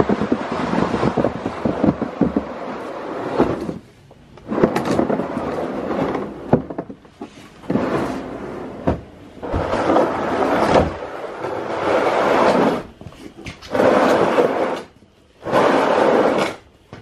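Plastic sled loaded with firewood being dragged by a cord over packed snow and onto a concrete floor: a scraping rumble in a series of tugs, with short pauses between them.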